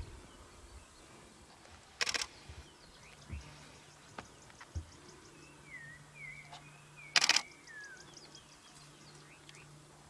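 Two short bursts of a camera shutter firing rapidly in continuous mode, about two seconds in and again about seven seconds in. Birds chirp in between, over a faint low steady hum.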